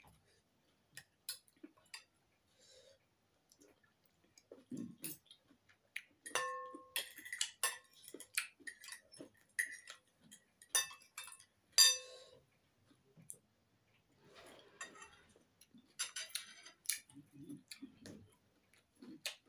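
Metal spoon and fork clicking and scraping against a ceramic bowl while eating. A few strikes ring briefly, the clearest about six seconds in and again near twelve seconds, with soft chewing sounds in between.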